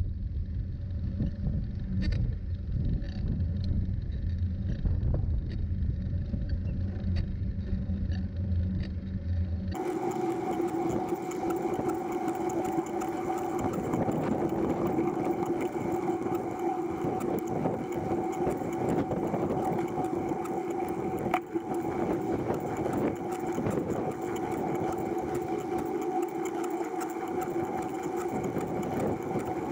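Riding noise from a recumbent trike: low wind and road rumble on the camera for about ten seconds, then an abrupt change to a steady mechanical whine at two pitches over tyre hiss, which holds to the end.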